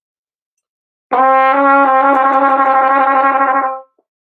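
Trumpet playing a semitone trill between D and E-flat. It starts about a second in with a short held note, then alternates the two notes rapidly and evenly for about two seconds before stopping shortly before the end.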